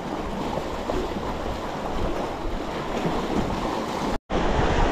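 Sea surf washing steadily, with a low rumble of wind. The sound drops out completely for a moment near the end.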